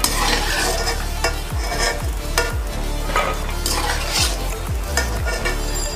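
Makhana (fox nuts) sizzling in hot ghee while a steel slotted spoon scrapes and clinks against the metal pot, scooping them out, with a stroke about every second.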